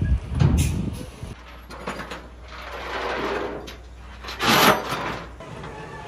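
Steel shipping container scraping and clunking as it is dragged onto a truck, in a few loud sliding surges, over the low steady hum of the truck's engine.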